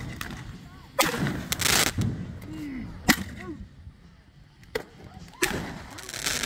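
Consumer ground fireworks going off: sharp cracks about one and three seconds in, with stretches of hissing, crackling spray, the loudest around the first crack and again near the end.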